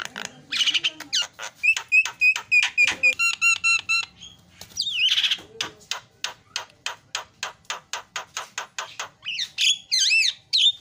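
Javan myna singing a long, varied song: fast runs of clicking, chattering notes, a quick series of evenly repeated whistled notes, and a few swooping whistles near the end, mixed with phrases mimicked from other birds.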